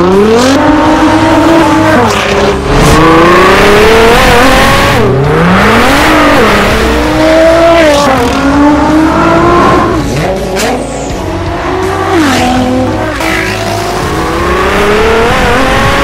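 Nissan GT-R R35's twin-turbo V6 accelerating hard through the gears on an Armytrix valvetronic exhaust. Its pitch climbs for a couple of seconds, then drops sharply at each quick upshift, about five times over.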